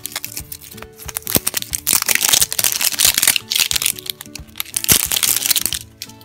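Thin plastic wrap crinkling and crackling as it is peeled and picked off a plastic acorn-shaped toy capsule, with clicks of the plastic shell being handled; the crinkling is densest from about two seconds in until just before the end. Soft background music with held notes plays underneath.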